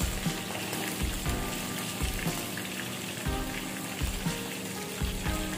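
Chicken pieces frying in hot oil, a steady sizzle, under background music with a regular beat.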